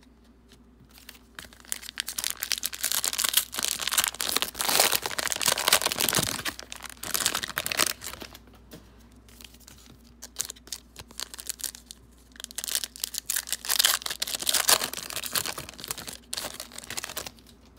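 Cellophane wrapper of a trading-card pack crinkling and tearing as the pack is opened by hand, in two long stretches of rustling, the first starting about a second in and the second around twelve seconds in.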